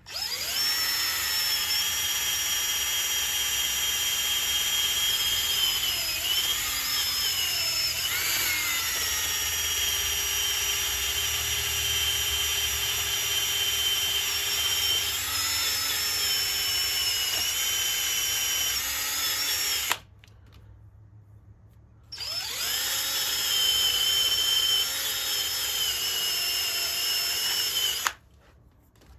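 High-speed power tool with a sanding attachment whining as it sands down a cured JB Weld patch on a Yamaha Raptor 250 engine case; its pitch dips briefly several times as it is pressed against the work. It stops about twenty seconds in, starts again two seconds later, and stops shortly before the end.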